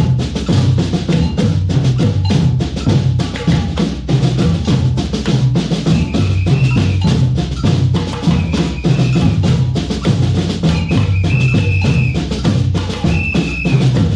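A band of several drummers playing together: deep drums beating a steady rhythm under dense, rapid strokes from higher-pitched drums. Short high notes sound a few times in the second half.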